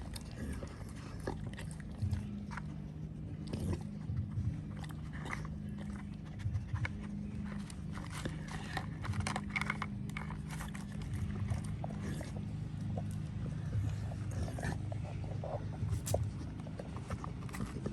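A pit bull working a plastic brick puzzle dog toy: scattered clicks and knocks of the plastic pieces being nudged, with the dog chewing, over a steady low hum.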